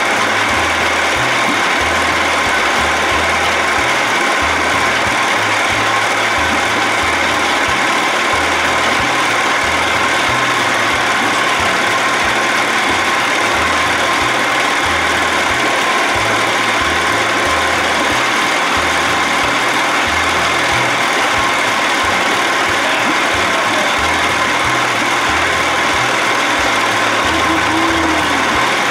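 1979 Evinrude 55 hp two-stroke outboard running steadily in a water test tank, warmed up to its operating temperature.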